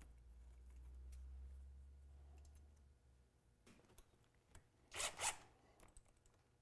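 Cordless drill/driver running briefly to drive a small 10-32 machine screw into a jounce bumper on an aluminium suspension rail: one short burst about five seconds in, after a few faint clicks of handling.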